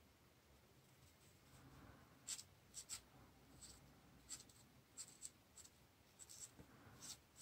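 Fine-tip metallic marker drawing on heavy black paper: faint, scratchy little strokes, about a dozen of them in irregular succession, starting about two seconds in.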